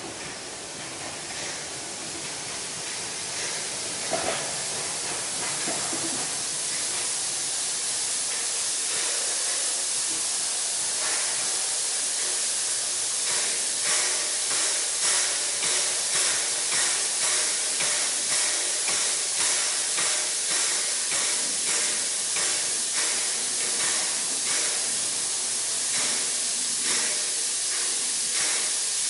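Harz narrow-gauge 2-10-2T steam locomotive 99 7247-2 starting its train under full power with its wheels slipping. Steam hisses loudly from the open cylinder cocks, and from about halfway in a regular exhaust beat comes in, a little more than one chuff a second.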